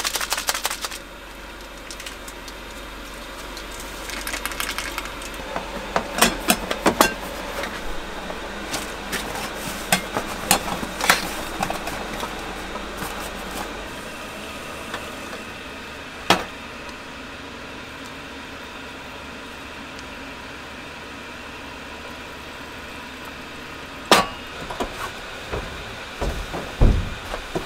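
Kitchen handling sounds at a camper van's counter: scattered clicks, taps and rustles of a paper cup-noodle lid and utensils, with a few low knocks near the end. A fast rattling lasts about the first second. A low hum from the portable gas stove cuts off about halfway through, as its knob is turned.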